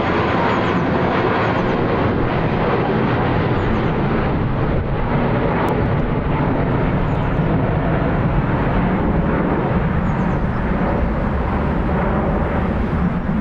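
Steady jet engine noise from an airliner, an even rumble with no sudden changes.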